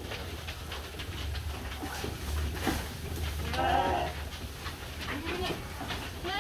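Penned livestock bleating: one loud, wavering bleat about three and a half seconds in, and another starting at the very end. Scattered short knocks and a steady low hum sit underneath.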